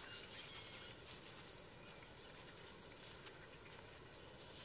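Faint, steady, high-pitched chorus of insects in the bush, with a few faint short chirps over it.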